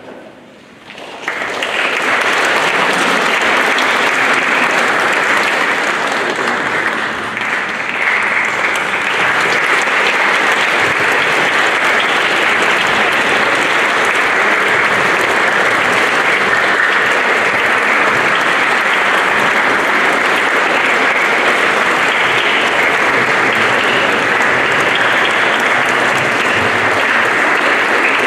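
Audience applauding steadily, the clapping swelling in about a second in, welcoming performers onto the stage.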